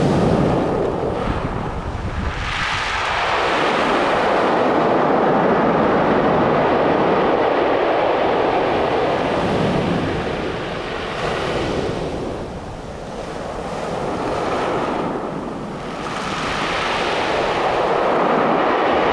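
Sea surf breaking on a shingle beach: a steady wash of waves that swells and eases every few seconds.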